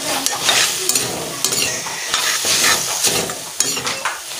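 Steel ladle scraping and clinking around a stainless steel pan in irregular strokes, stirring a sizzling fiddlehead fern and potato curry.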